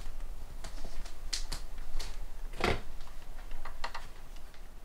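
Scattered clicks and light knocks of small parts being handled and fitted onto a Printrbot 3D printer's carriage, with one louder knock a little past halfway and a quick run of clicks near the end.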